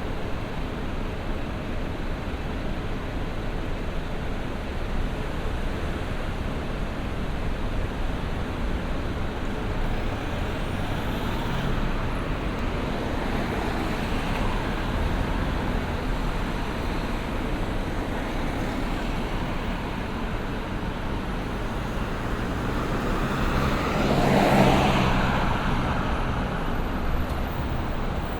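City street traffic: a steady wash of passing cars and engine rumble. About 24 seconds in, one vehicle passes close by, swelling louder and fading again.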